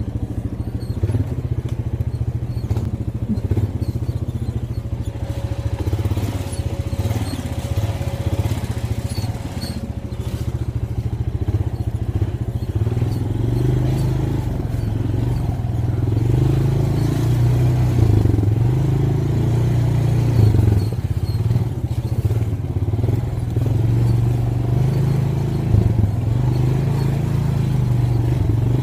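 Four-wheeler (ATV) engine running as it rides a bumpy trail: a steady low drone with scattered rattles and knocks, getting somewhat louder about halfway through.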